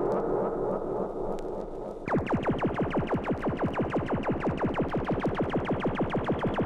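Electronic spooky sound effect. A steady rushing noise runs for about two seconds, then changes abruptly to a fast, even train of tones, each sweeping quickly downward in pitch, about eight a second.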